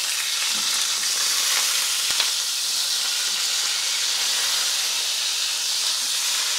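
Large beef steak sizzling steadily as it sears in hot ghee in a pan. A single sharp knock comes about two seconds in.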